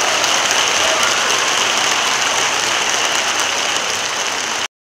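Audience applauding steadily; the clapping cuts off abruptly near the end.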